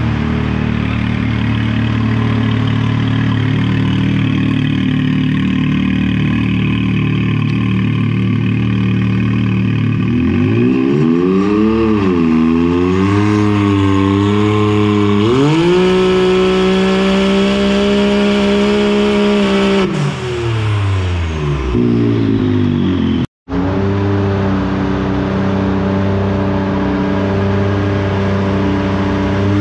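A Can-Am X3 Turbo RR's turbocharged three-cylinder Rotax engine, with a cat-delete exhaust, running under load on a chassis dyno. It runs steadily for about ten seconds, then revs up with a rise and dip, holds a higher speed for several seconds, and falls back to a steady run at about 3,900 rpm. It starts to climb again right at the end, with a split-second gap in the sound about two-thirds through.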